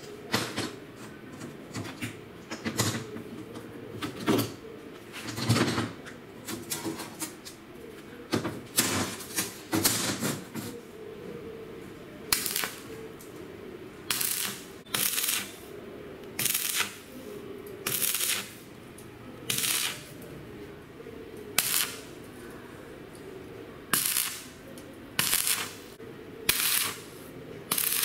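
Stick (arc) welding on steel flat bar, laid as a string of short tack welds: each arc runs for about half a second with a crackling hiss, roughly one every second and a half, over the second half. Before that, sharp metal knocks and clicks as the bars and clamps are set on the steel welding table.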